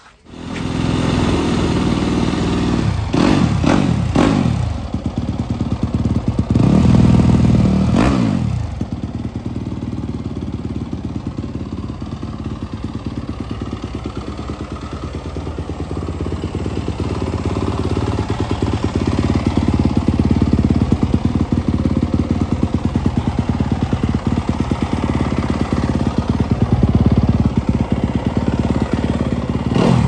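2023 Yamaha YZ250F's 250 cc single-cylinder four-stroke engine starting up and being blipped twice, the revs rising and falling in the first eight seconds. It then idles steadily, the revs creeping up a little in the second half.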